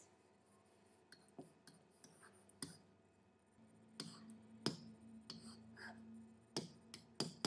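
Faint, irregular clicks and taps of a stylus on a pen tablet during handwriting, about seven or eight in all, over low room noise.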